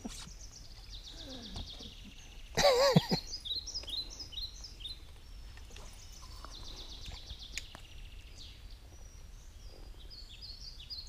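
Songbirds singing, with short repeated high chirping phrases throughout. About three seconds in there is a brief, louder voice-like call.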